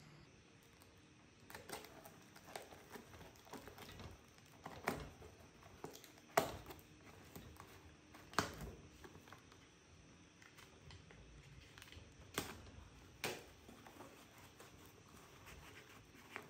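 Taped cardboard box being torn open by hand: irregular rustling and crackling of cardboard and packing tape, with several sharp rips.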